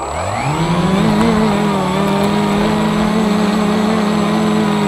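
Scratch-built FPV quadcopter's motors and propellers, close up from the quad's own camera. The buzz rises in pitch over about the first second as the motors throttle up, then holds a steady pitch in flight.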